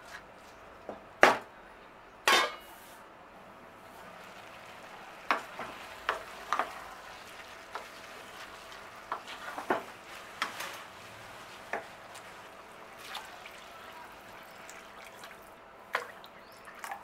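A spoon stirring and knocking in a cooking pot: scattered clinks and knocks, the two loudest near the start, over a faint steady hiss.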